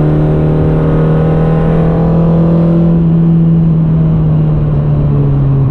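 Peugeot 106 Quicksilver's four-cylinder petrol engine running hard at steady high revs, heard from inside the cabin with road noise. The note holds steady, its upper tones fading after about three seconds and the pitch easing slightly near the end.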